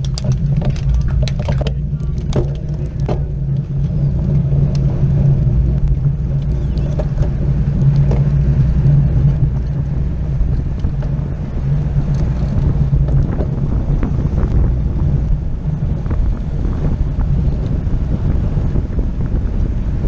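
Wind buffeting a bike-mounted camera's microphone over a steady low rumble of road-bike tyres on asphalt, riding in a racing pack. There are a few sharp clicks in the first three seconds.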